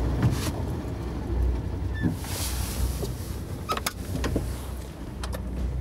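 Side-by-side UTV running over a rough, snowy dirt track, heard from inside its cab as a steady low rumble. A few sharp clicks and knocks come in the second half.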